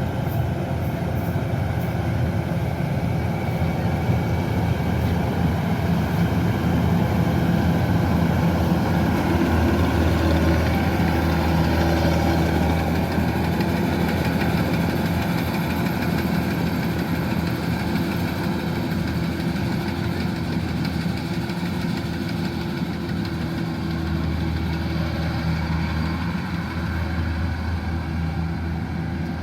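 Kubota DC-105X combine harvester's diesel engine and machinery running steadily, a little louder in the middle of the stretch.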